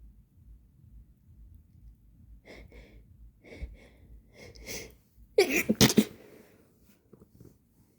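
A person sneezing: a run of short, catching breaths builds up, then a loud sneeze comes about five and a half seconds in.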